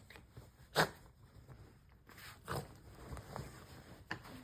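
Bedding rustling as a dog rubs against pillows: a few short scuffing rustles, the loudest about a second in.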